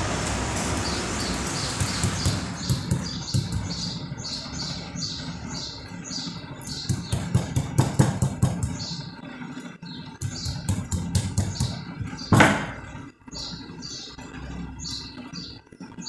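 Rubber mallet tapping the copper windings of a rewound washing-machine motor stator, a run of repeated light taps that flatten and shape the coils. One louder knock comes about twelve seconds in.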